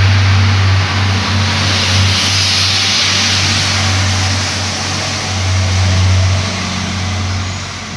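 Irish Rail commuter diesel multiple-unit train running past the platform and pulling away. A steady low engine hum mixes with a rushing of wheels on rail that peaks a few seconds in and eases slightly near the end as the rear car draws off.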